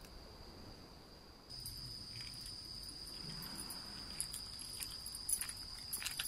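Crickets trilling: a steady, high-pitched chirr that gets louder about a second and a half in. A few light clicks and knocks sound near the end.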